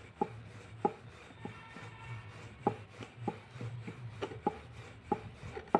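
A hand patting and pressing a large sheet of rice-flour dough flat on a floured board, giving a series of short, soft, irregular thuds.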